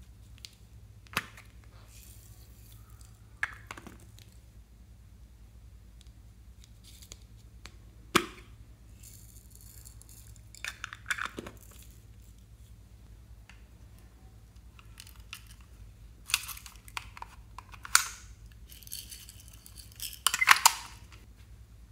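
Small plastic containers and trinkets being handled and opened: a few sharp plastic clicks, and short rattling, crinkling spells as loose sprinkles and glitter are shaken about inside them.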